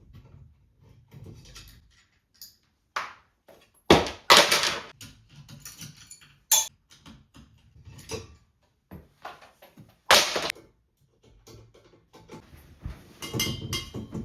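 Irregular knocks, clicks and rattles of a ceiling fan's parts being handled and taken apart, with several sharp louder clunks along the way.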